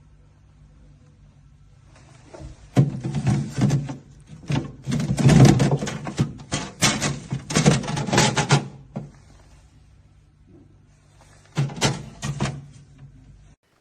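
Knocks, clicks and plastic rattles of a compact fridge being handled, its door and shelves opened and moved, in two spells over a steady low hum. The hum cuts off near the end.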